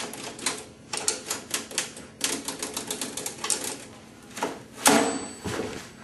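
Typewriter keys being struck, typing out a sentence in uneven runs of several strokes a second, with a louder clack about five seconds in.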